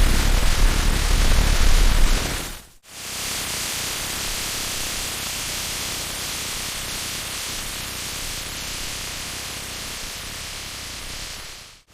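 Steady hiss-like noise. A low rumble runs under it for the first couple of seconds, then both cut out briefly about three seconds in. A steady hiss then carries on and fades slightly before stopping near the end.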